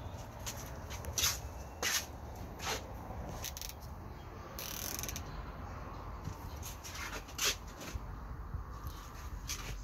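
Scattered small clicks and scrapes of plastic being handled as black drip tubing is worked into a plastic cap, with a short rustle near the middle, over a steady low rumble.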